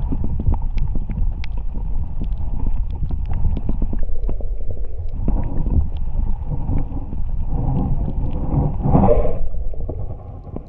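Muffled underwater rumble of moving water against a camera's waterproof housing, with scattered faint clicks and a louder rush about nine seconds in.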